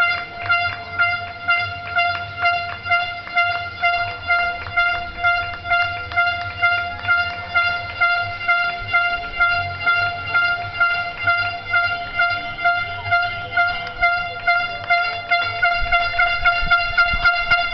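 A horn sounding one steady note in regular pulses, about three every two seconds, over scattered hand clapping from the balconies.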